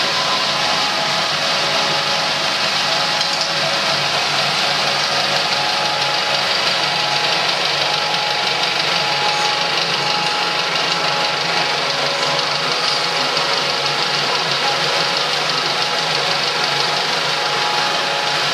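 Cinemeccanica Victoria 5 35 mm film projector running with its lamphouse fans and film platters turning: a steady whirring machine noise with a couple of faint steady hum tones.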